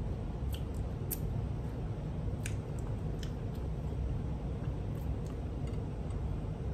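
A person chewing food close to the microphone, with a handful of sharp, scattered wet mouth clicks over a steady low background rumble.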